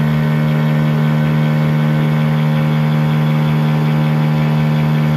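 A loud, steady low-pitched drone holding one constant pitch.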